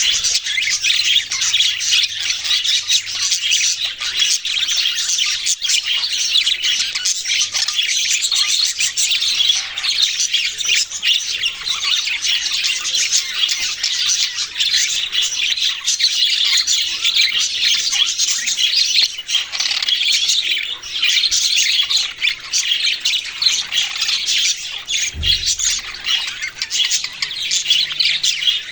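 A flock of small pet parrots chattering and squawking all at once, a dense unbroken mass of high, overlapping chirps.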